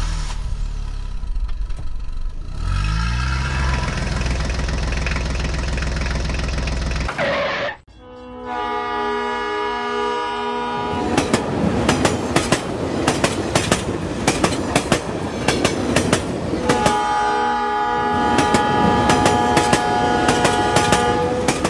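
A tractor engine runs with a low steady drone, with a rising note a few seconds in, then cuts off. After a short gap a train horn sounds, followed by the clickety-clack of train wheels over rail joints, and the horn sounds again near the end.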